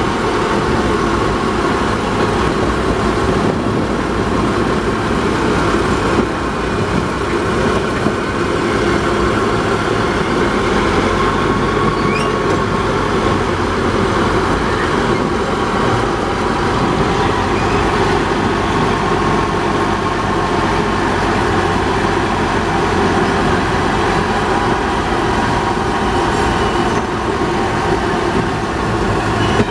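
Small diesel shunting locomotive running steadily as it travels slowly along the track, its engine close by, with wheels running on the rails.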